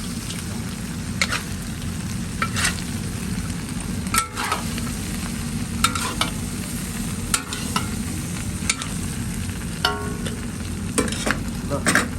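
Spiced mutton frying and sizzling in a pan on high heat, stirred with a metal spatula that knocks and scrapes against the pan about once a second, some strokes ringing briefly.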